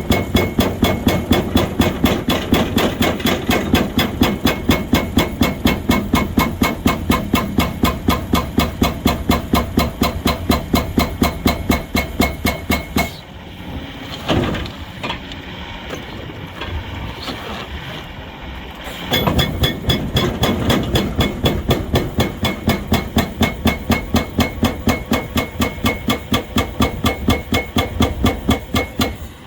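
Excavator-mounted hydraulic breaker hammering, a fast even run of blows at about four to five a second. It stops for about six seconds in the middle, leaving a steadier machine sound with a few knocks, then starts hammering again.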